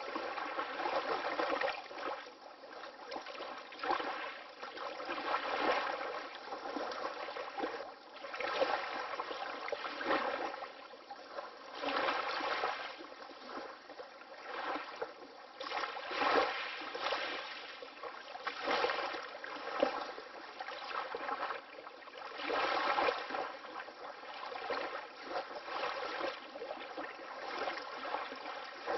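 Water lapping: small wavelets splashing and gurgling in uneven swells that rise and fall every two to three seconds, with no deep rumble.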